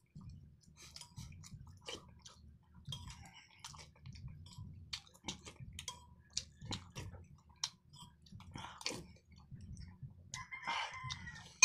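Close-up eating sounds: wet chewing with frequent small mouth clicks and lip smacks as rice and fish are eaten, and a brief slurp of soup from a spoon near the end.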